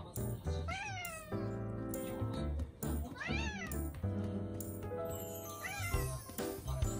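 A domestic cat meowing three times, each call rising and then falling in pitch, with background music playing throughout.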